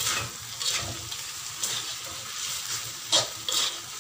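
Spatula scraping and tossing glass noodles and bean sprouts in a metal wok over a steady frying sizzle. There are several sharp scrapes against the pan, the loudest about three seconds in.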